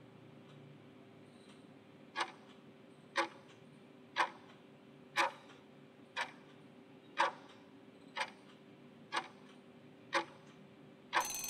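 Countdown-timer sound effect ticking once a second, nine sharp ticks, then a brief ring near the end as the countdown runs out.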